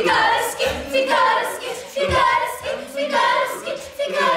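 A mixed group of young actors, women and men, singing a song together on stage, several voices at once holding long notes.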